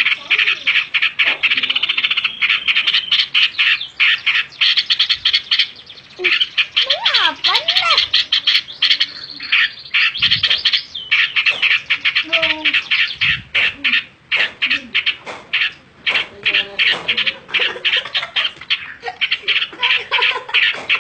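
Straw-headed bulbul (cucak rowo) singing and chattering loudly in fast, rapid pulses, in long runs broken by brief pauses.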